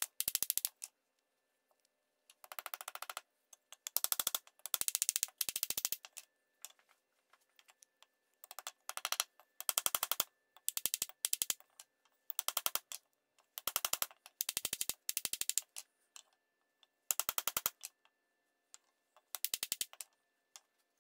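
Repeated bursts of rapid, evenly spaced sharp clicking knocks, with short pauses between bursts, from fitting a wooden handle into the eye of a forged hot cut head on a wooden stump: the head is worked down onto the handle and the fit is tapped home with a hammer.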